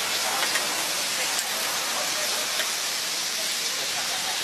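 Kielbasa sausages and onions sizzling on a large round griddle pan: a steady hiss.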